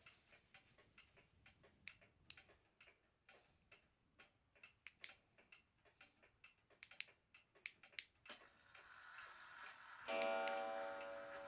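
Spring-driven pendulum wall clock with the VESSEL sailing-ship mark, ticking steadily. About eight seconds in, a whirring from the striking mechanism builds. About ten seconds in, the first gong strike of the seven o'clock hour rings out and sustains; it is the loudest sound.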